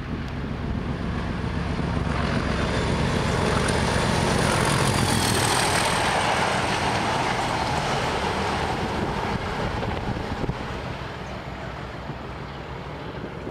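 Class 37 diesel-electric locomotive with its English Electric V12 diesel engine passing at speed, hauling a test coach. The engine note and wheel-on-rail noise build as it approaches, are loudest about five seconds in as it goes by, then fade as it moves away.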